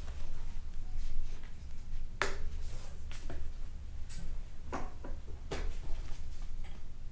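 Scattered clicks and rustles of upholstery material being lined up by hand under the needle and presser foot of a Consew 206RB-5 walking-foot industrial sewing machine, over a steady low hum; the machine is not yet stitching.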